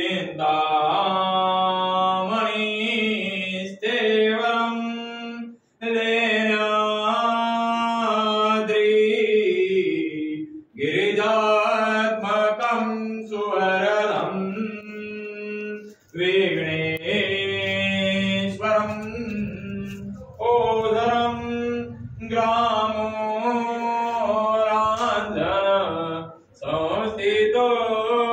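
Hindu wedding verses chanted in a melodic, sung style by a single voice, in long phrases separated by brief pauses, over a steady low hum.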